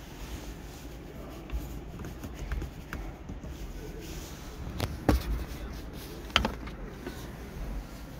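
Handling noise inside a car's cabin: small taps and two sharp knocks, about five and six and a half seconds in, over a steady low background hum.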